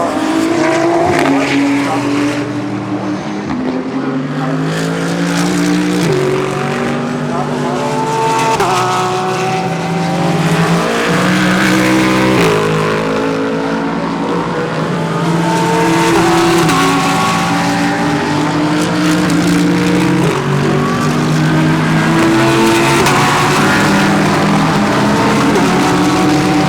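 Several GT3 race cars running through a corner one after another, their engines overlapping, the engine notes stepping up and down as they change gear and accelerate away.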